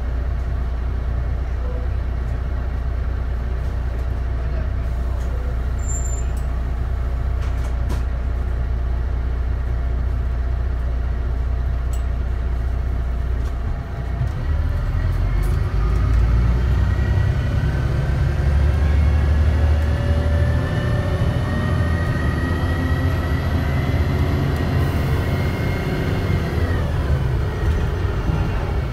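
DAF DB250 double-decker bus's diesel engine running steadily at low revs. About halfway through, the bus pulls away: the drone grows louder and a whine climbs steadily in pitch as it accelerates, then drops suddenly near the end at a gear change.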